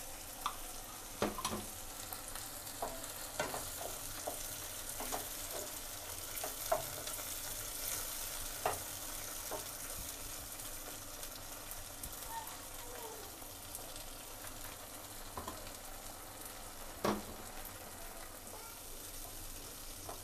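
Onion-and-capsicum gravy sizzling in a non-stick pan as it thickens with freshly added cornflour slurry, stirred with a wooden spatula. The spatula knocks against the pan now and then in short sharp clicks.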